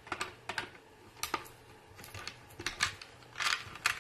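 Scattered small clicks and light metallic rattles as the picture frame's hanging wire is unhooked and handled, with a short scrape about three and a half seconds in.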